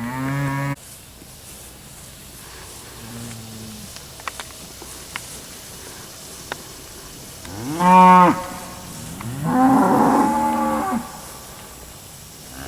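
Cattle mooing, four calls. There is a short moo at the start and a faint low one about three seconds in. About eight seconds in comes the loudest, rising and falling in pitch, followed by a longer, rougher moo.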